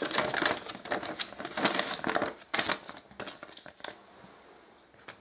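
Paper instruction sheet rustling and crinkling as it is handled, in irregular bursts that die away about four seconds in.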